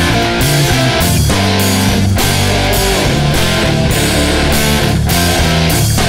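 Loud guitar-driven rock music.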